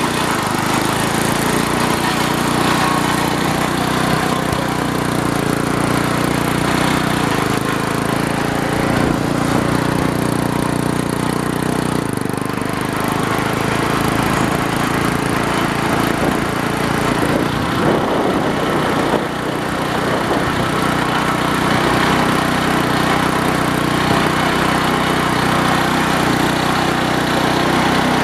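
Small engine of a riding garden tractor running steadily as it drives along, loud enough to drown out a voice.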